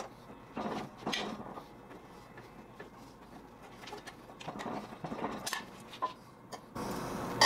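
Faint, scattered scrapes and clicks of a steel flat bar, already curved into a hoop, being handled and turned against a small hand-cranked ring roller.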